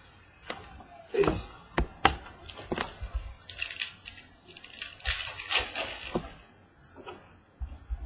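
Trading cards being handled and flipped through: a run of sharp clicks and taps, then two stretches of rustling and sliding as cards are slid across one another.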